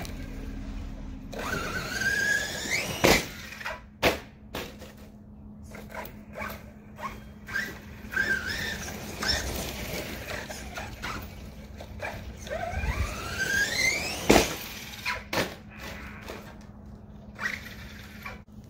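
Electric RC monster truck's brushless motor whining up in pitch as it accelerates, twice, each run ending in a loud sharp impact. Short knocks and clatter of the truck bouncing over the yard come in between.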